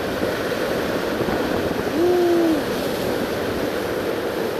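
Rough sea surf washing against rocks, with strong wind buffeting the microphone. About two seconds in there is a short hooting tone that rises slightly and then falls away.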